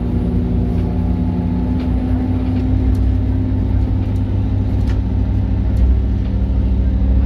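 Airport shuttle bus running across the apron, heard from inside the cabin: a steady engine hum and low rumble with a few faint rattles, swelling slightly near the end.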